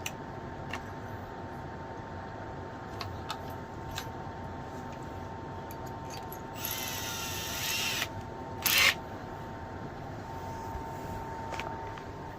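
Scattered small clicks and knocks of hand work on hardware over a steady faint hum. About seven seconds in comes about a second of rasping noise, then a shorter, louder burst.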